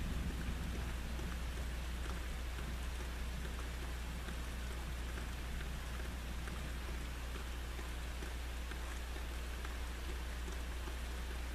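Steady thunderstorm rain, with many individual drops ticking close by. The tail of a low thunder rumble dies away in the first second.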